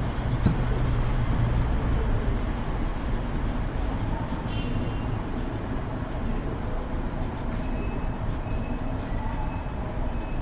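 Steady road and traffic noise from a car driving through city streets, with a low engine hum that eases off about two seconds in.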